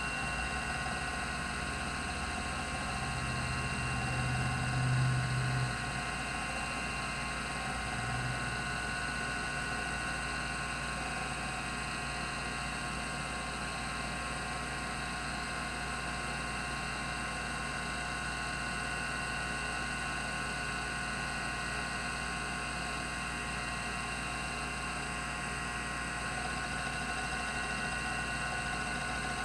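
Rodime RO352 3.5-inch hard drive running: a steady whir with several fixed high whines from the spinning disks and electronics. A louder low buzz comes in about three seconds in and stops near six seconds, with a short one near eight seconds.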